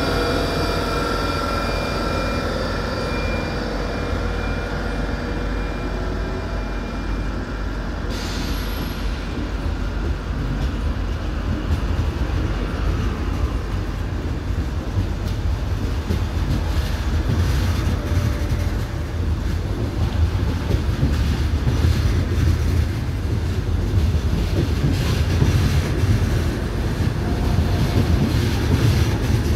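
TGV Lyria 2N2 double-deck high-speed train departing past the platform. A set of steady whining tones from the power car fades out over the first several seconds, leaving a steady low rumble of the double-deck coaches rolling by. Wheel clicks over the rail joints grow more frequent toward the end as the train gathers speed.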